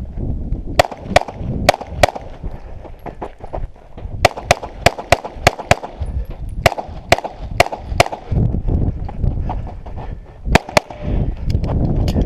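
Pistol fire during a timed stage: rapid strings of shots, about four, then about six, then four more, then a last couple, with short pauses between strings.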